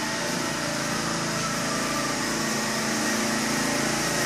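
Small engine-driven generator running steadily with an even hum.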